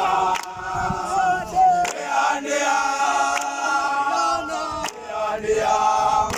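A group of men singing a chanted song together, several voices held in harmony, with a sharp beat about every second and a half.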